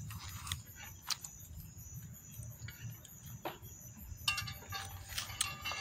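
Night insects, crickets, chirring in a steady high drone, with a few light clicks and knocks scattered through it.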